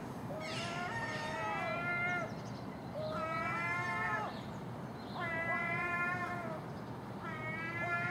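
Common gulls giving long, drawn-out mewing calls one after another, about four in all, some overlapping, each rising, holding and then falling away.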